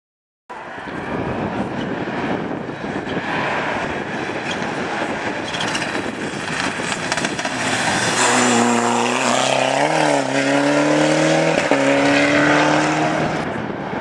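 Ford Escort RS Cosworth rally car driven hard through a bend on a tarmac stage. The engine note grows louder about eight seconds in, dips briefly around ten seconds, then climbs steadily as the car accelerates away.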